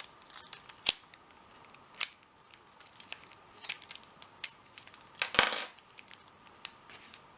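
Key and lock of an Abus 71/40 plastic-bodied lockout padlock clicking as the key is worked in it, a string of small metallic clicks and rattles. The sharpest, loudest click comes about five and a half seconds in.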